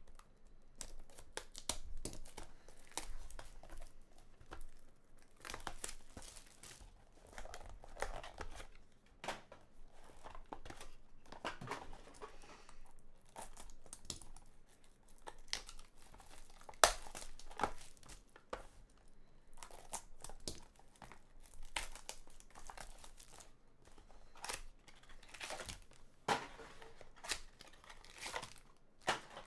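Plastic wrapping crinkling and tearing as a sealed trading-card box and pack are opened by hand, in irregular rustles with scattered sharp clicks, the loudest a single snap about halfway through.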